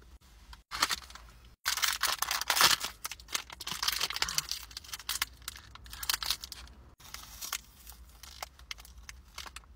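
Crinkly plastic snack wrapper being handled and torn open, a dense run of crackling in the first half, then a few fainter crinkles.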